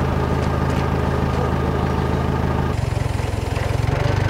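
An engine idling steadily, its sound changing abruptly a little over halfway through.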